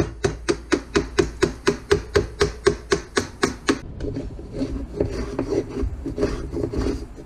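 Round wooden mallet striking a wood chisel into a board, an even run of about four blows a second. After about four seconds the blows stop and the chisel is pushed through the wood by hand, a rough scraping of paring cuts.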